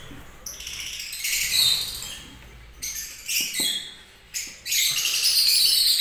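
A colony of lovebirds squawking and chirping in repeated, high-pitched, overlapping calls, loudest near the end. A couple of faint knocks midway.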